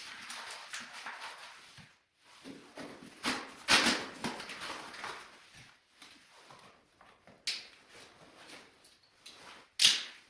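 A fire being made in a traditional wood stove: irregular knocks, clicks and rustling of wood, loudest about four seconds in, with a sharp crack near the end.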